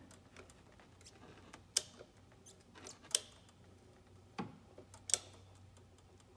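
Torque wrench ratcheting in short tightening strokes: four sharp clicks spaced about a second apart with faint ticking between them. The wrench has not yet reached its set torque.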